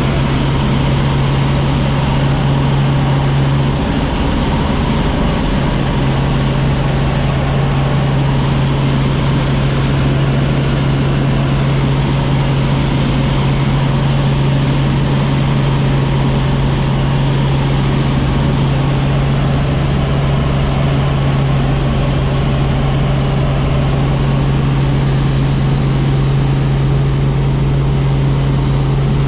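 A loud, steady vehicle engine drone with a strong low hum, which briefly drops out about four seconds in.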